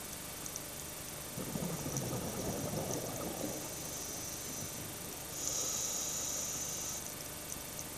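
Scuba diver breathing through a regulator underwater: a rumbling gurgle of exhaled bubbles starting about one and a half seconds in, then the hiss of an inhaled breath for about a second and a half near the end, over a steady background hiss with scattered faint clicks.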